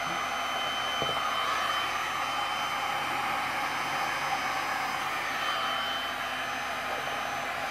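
Electric heat gun with a flat spreader nozzle running steadily over wet epoxy resin: an even blowing rush with a thin high whine.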